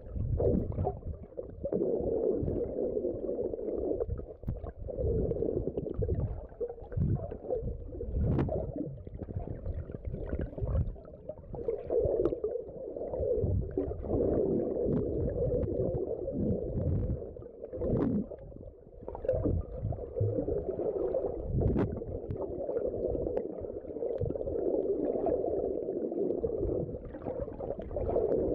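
Muffled underwater rumbling and swishing of water moving around a submerged phone, swelling and fading, with a few sharp clicks.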